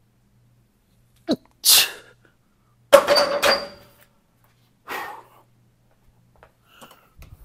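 A loaded barbell set down on the rack's metal hooks about three seconds in: a loud clang, then a second clank, ringing briefly. Around it come sharp, hissing exhalations from the lifter finishing standing overhead presses, one before the clang and another about two seconds after it.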